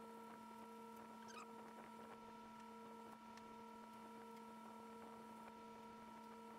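Near silence: workshop room tone with a faint steady electrical hum, a few faint ticks and one brief faint chirp about a second and a half in.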